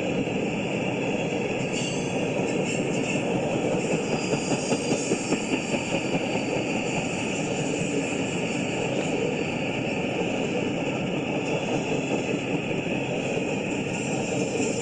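Long freight train of empty intermodal well cars rolling past: a steady rumble of steel wheels on rail, with a brief run of rhythmic clatter about four seconds in.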